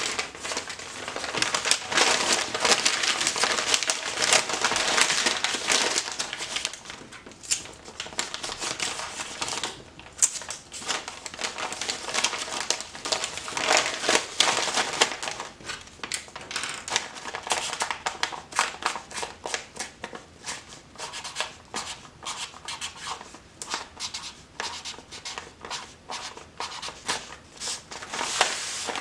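Brown kraft paper crinkling and rustling as it is folded by hand into a packet around pieces of charcoal. The sound is densest in the first six seconds or so, then comes as many shorter, separate crinkles.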